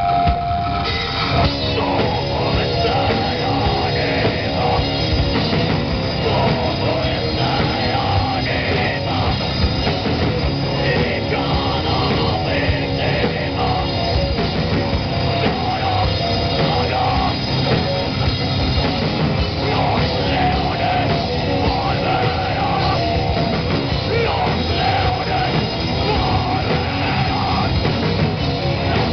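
Live heavy metal band playing loud: distorted electric guitar and bass over a pounding drum kit, with no break.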